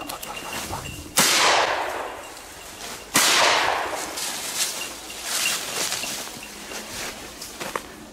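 Two shotgun shots about two seconds apart, each echoing and fading over about a second through the woods.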